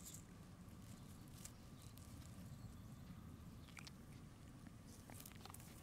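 Quiet outdoor ambience: a steady low rumble with scattered faint small clicks and ticks, a few of them near the start, around the middle and near the end.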